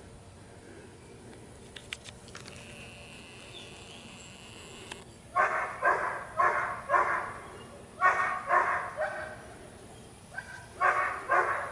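A dog barking close by in quick runs of about two barks a second, starting about five seconds in and coming in three bursts.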